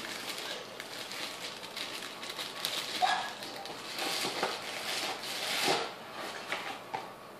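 Plastic bag of dry cake mix rustling and crinkling as the mix is poured and shaken out into a stainless steel bowl. A short pitched sound stands out about three seconds in.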